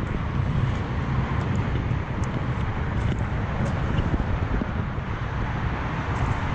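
Steady noise of freeway traffic, with wind buffeting the microphone.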